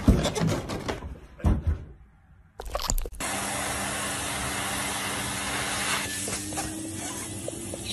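A few loud knocks and scuffles, then from about three seconds in a vacuum cleaner switches on and runs steadily, a hiss of air with a steady hum, its hose nozzle being pawed at by a cat.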